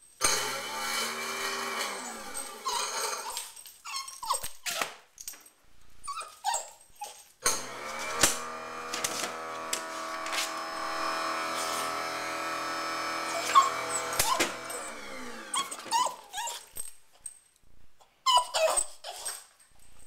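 Garbage disposal motor running with a steady hum, first briefly and then for about seven seconds, winding down each time it is switched off. A Boston terrier, upset by the disposal's noise, barks and whimpers at it throughout.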